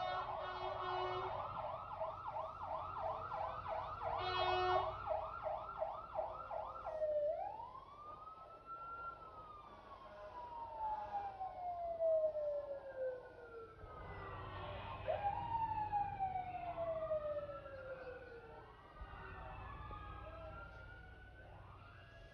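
Fire truck siren sounding a fast yelp for about seven seconds, then switching to slow wails that rise and fall, with more than one siren overlapping in the second half.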